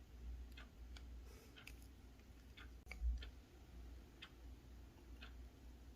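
Faint, irregular light ticks, roughly one a second, with a sharper click about three seconds in, over a low steady hum.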